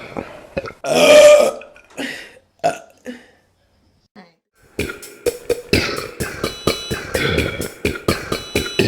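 A woman's long, loud burp about a second in, followed by a few shorter sounds, then a short quiet gap; about five seconds in, music with a steady beat starts.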